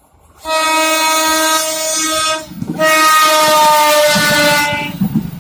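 Air horn of a JR 205 series electric train giving two blasts of about two seconds each, with a breathy hiss under the note and the pitch sagging slightly on the second blast. It is the odd, wheezy horn sound that the uploader calls "having a cold".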